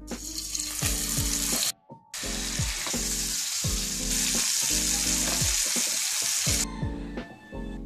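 Chicken pieces frying in hot cooking oil in a frying pan, a steady sizzle. It breaks off for a moment about two seconds in and stops about a second before the end.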